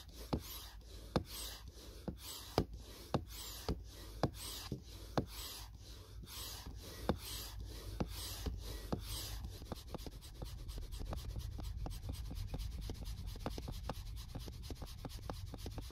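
Manual hand pump inflating an inflatable stand-up paddleboard: rhythmic pump strokes, each with a click and a rush of air, about two a second, then quicker and shorter from about ten seconds in. The board is still well short of its 10 to 15 PSI target.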